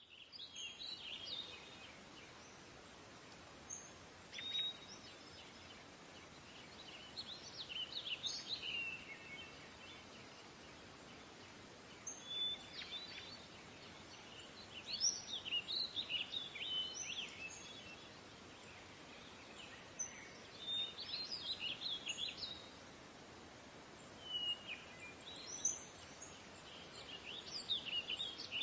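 Small birds singing in short chirping phrases every few seconds over a steady background hiss of nature ambience.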